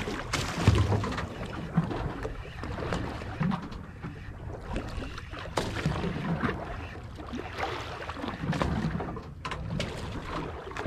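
Ambient sound aboard a drifting fishing boat: water lapping against the hull and wind on the microphone, with scattered light clicks and knocks.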